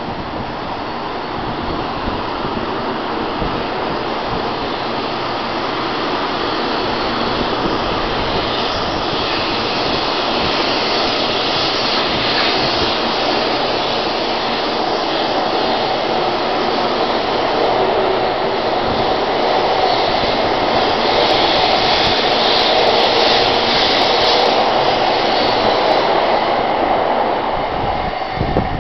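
Taiwan High Speed Rail 700T electric high-speed train pulling out of the station and gathering speed alongside the platform: a steady rush of running noise that grows louder as it speeds up, then falls away as the last car passes at the very end.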